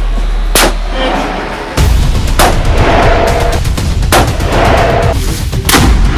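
Several loud long-range precision rifle shots, each a sharp crack, spaced a second or more apart over background music with a heavy bass.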